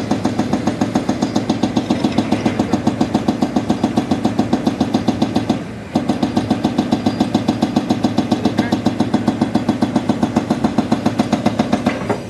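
Hydraulic rock breaker on a Volvo excavator hammering rock in rapid, even blows. It pauses briefly about six seconds in, then resumes and stops near the end.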